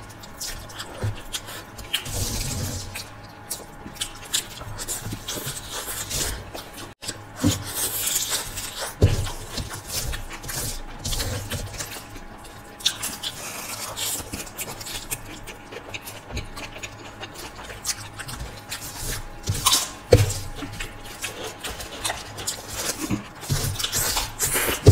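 Close-miked eating sounds: wet chewing and slurping of noodles and pasta, coming in irregular short bursts with a few sharp clicks.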